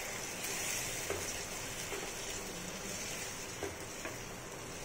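Chicken curry sizzling steadily in a nonstick pan while a spatula stirs it, with a few faint taps of the spatula on the pan.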